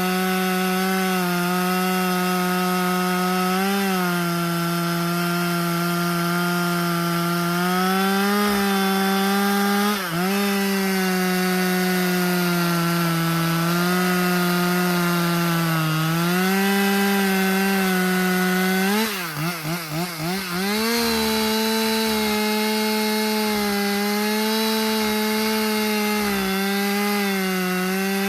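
Husqvarna T540XP Mark III 40 cc top-handle chainsaw running at high revs while cutting wood, its pitch sagging and recovering as the chain loads up. About two-thirds of the way in, the throttle is let off and blipped several times in quick succession before the saw goes back to full speed.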